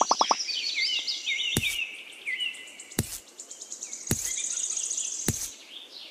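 High bird-like chirping and twittering, with five sharp knocks at regular intervals, about one every second and a quarter. A rapid pulsing tone cuts off just after the start.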